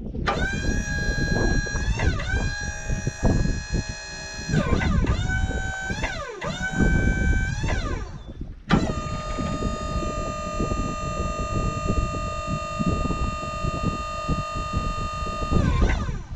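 Wood-Mizer LT35 HD sawmill running while its saw carriage is driven forward and backward: a strong whine from the carriage feed drive swoops up and down in pitch several times, then holds one steady pitch from about nine seconds in and falls away near the end, over the steady rumble of the engine.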